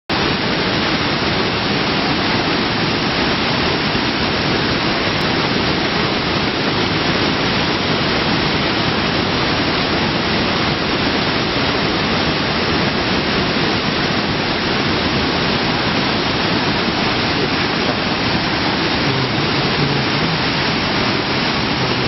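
Waterfall in spate, muddy floodwater pouring over boulders into a swollen river: a loud, steady rush of water.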